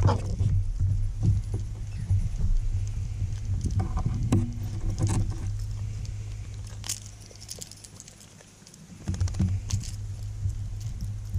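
Jingling and light clicking of a hard jerkbait's treble hooks and rings as a freshly landed largemouth bass is handled and unhooked, in scattered short clicks over a steady low hum.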